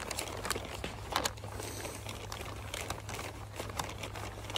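Brown paper bag crinkling and rustling in irregular little crackles as hands squeeze and push it into shape over a metal tin.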